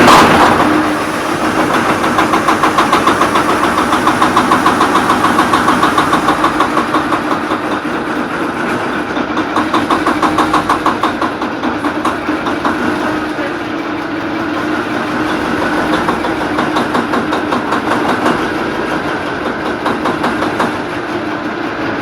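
MTU diesel engine of a DR1B diesel train firing up and running roughly through a hard start, with a rapid rhythmic knocking pulse that is strongest in the first half. It is a start the crew calls unsuccessful.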